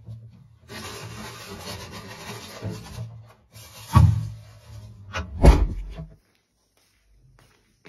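Food being taken out of a refrigerator: rustling of plastic packets and foil, then two sharp knocks about a second and a half apart.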